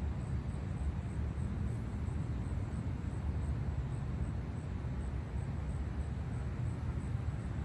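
Steady low outdoor rumble with no distinct events, carrying a faint, regular high-pitched ticking about three times a second.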